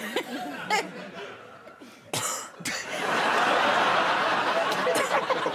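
Studio audience laughing. Scattered chuckles come first, then a brief sharp noise, then the laughter swells loudly about three seconds in and holds.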